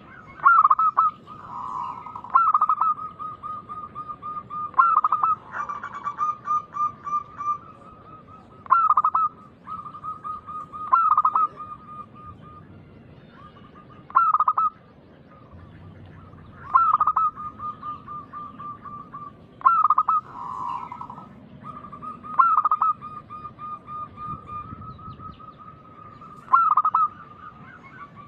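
Zebra doves (perkutut) cooing: about ten phrases, each a loud opening note followed by a rapid run of short staccato coos, repeated every two to three seconds.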